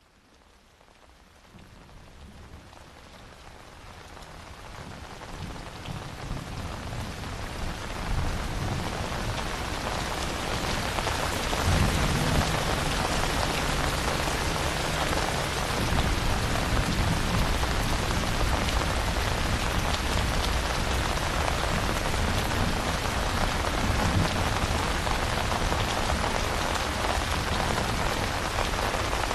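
Steady rain falling, fading in from near silence over the first several seconds and then holding, with low rumbles of distant thunder about twelve seconds in.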